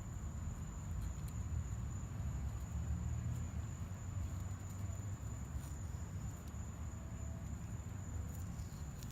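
Low, uneven wind rumble on the microphone with a steady high-pitched whine and a few faint ticks; no clear knife or cutting sound stands out.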